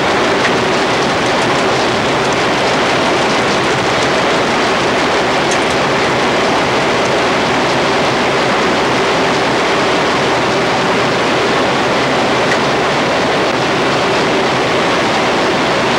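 Wind tunnel running: a steady, loud rush of airflow over the test section, with a faint steady hum.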